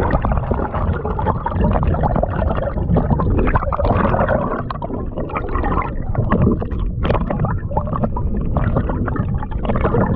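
Muffled, steady rushing and gurgling of water around a camera held just below the surface, with many small crackles.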